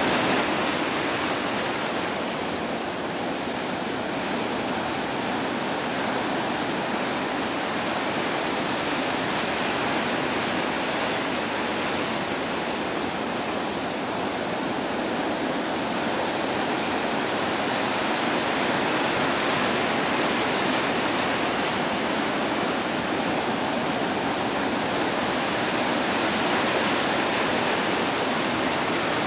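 Ocean surf breaking and washing onto a beach: a steady hiss of white water that swells and eases slowly.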